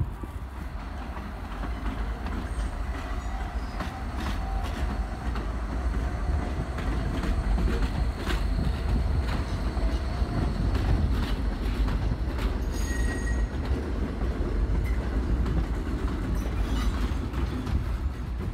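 An R32 New York City subway train rolling past on an elevated track: a steady low rumble with repeated clicks of the wheels over rail joints. A faint wheel squeal runs from about two to ten seconds in, and a brief higher squeal comes near thirteen seconds.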